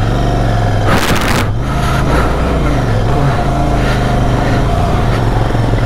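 Motorcycle engine running steadily while riding, with a short loud burst of rushing noise about a second in.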